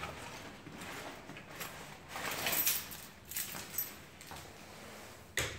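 A door being pushed open and footsteps through it, in a small, quiet room. A few small clicks follow, then a single sharp knock near the end.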